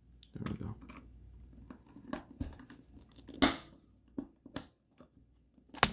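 110 punch-down tool pressed onto wires in a keystone jack: several sharp clicks as the tool fires, the loudest about three and a half seconds in, with a crinkly rustle of wire handling near the start. The blade is not fully cutting off the wire ends.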